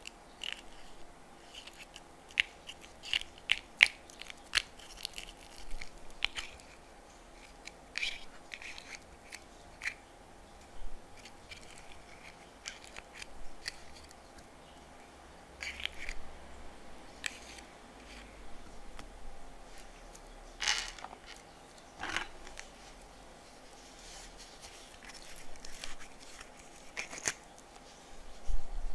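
Scattered small plastic clicks and crackles as a plastic squeeze bottle of yellow paint is handled and squeezed over a plastic tray, with a few sharper clicks among them.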